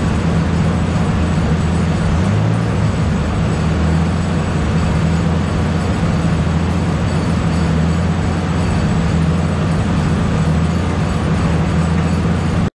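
Steady, loud mechanical drone in a chassis-dyno bay: a low, even hum under a broad hiss, with no revving. It is the noise of the car idling on the dyno and the shop's cooling fans.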